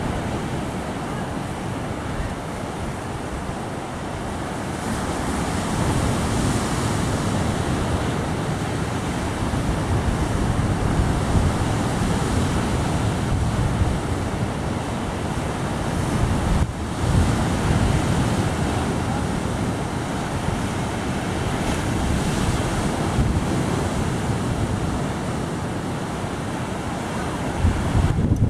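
Sea surf breaking on rocks and a sandy shore, a continuous wash of waves, with wind blowing on the microphone in gusts.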